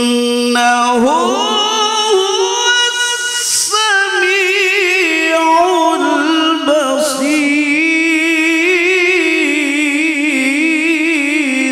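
A male qari reciting the Qur'an in the melodic tilawah style into a microphone over loudspeakers, with rising pitch glides and long ornamented held notes that waver and tremble.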